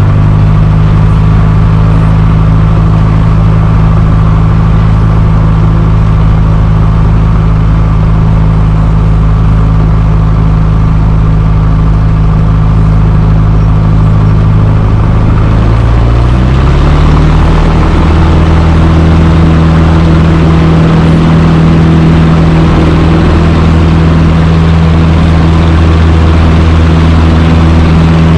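Cessna 150's four-cylinder engine and propeller droning steadily; about sixteen seconds in the pitch rises a little and holds as the engine speeds up.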